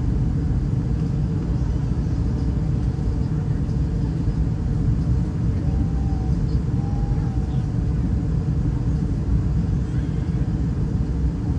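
Steady low rumble of an Airbus A320-211 in flight, heard from inside the passenger cabin: the constant drone of its CFM56 engines and the air rushing past the fuselage.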